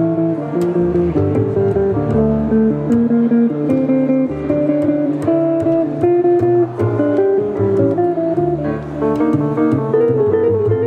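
Live band music: an electric hollow-body guitar plays a melody of single notes over an upright double bass.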